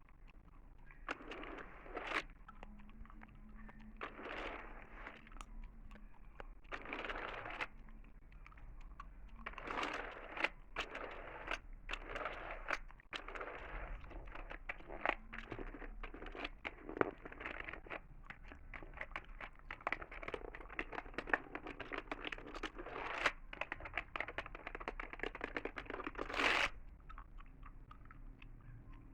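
Close-miked ASMR gum chewing and computer keyboard typing: irregular clusters of small clicks and crackles, with one sharper burst near the end.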